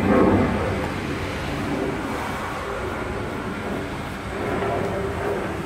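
Steady low engine rumble, with a brief louder swell right at the start.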